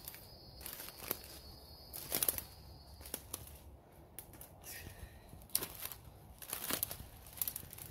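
Dry leaf litter and twigs crackling and branches swishing against a person pushing on foot through dense forest undergrowth, in irregular bursts.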